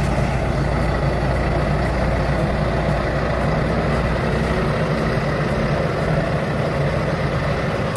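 A heavy machine's engine running steadily, an even low drone with mechanical noise over it.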